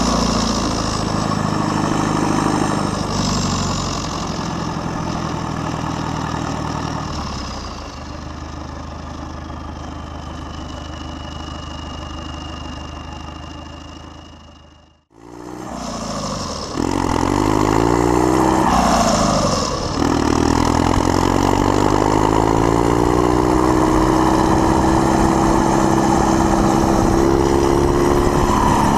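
Case International 856 XL tractor's six-cylinder diesel running through an open exhaust pipe with no muffler. The revs fall away over the first several seconds and the engine runs lower, then the sound fades almost to nothing about halfway. It picks up as the engine accelerates hard, dips once briefly, and runs on at high revs with the pitch creeping slowly upward.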